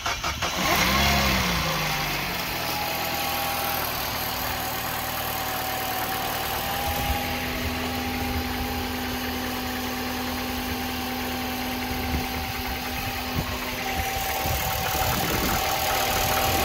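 Peugeot turbocharged direct-injection petrol engine being started: a brief crank, then it catches and flares up about a second in, and settles into a steady idle.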